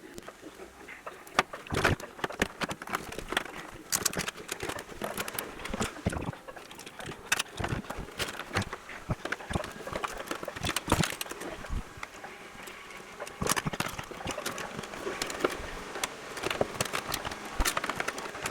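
Cables and connectors being handled inside a desktop PC case during wiring: irregular small clicks, taps and rustling.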